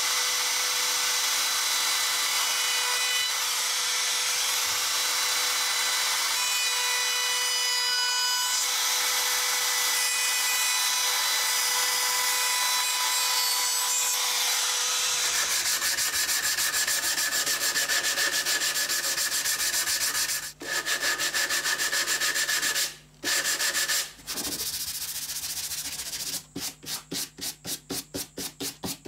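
Compact trim router running with a steady high whine as it cuts along the edge of a hardwood board; its tone changes about halfway and breaks off briefly twice. Near the end come quick back-and-forth hand-sanding strokes on the wood, about three or four a second.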